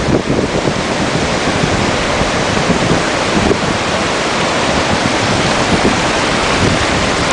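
Wind buffeting the microphone, with sea surf washing underneath as a steady rush of noise.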